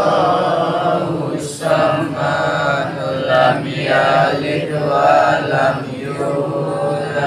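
Several men chanting Arabic Islamic prayers together in slow unison, in long drawn-out phrases with short breaks between them.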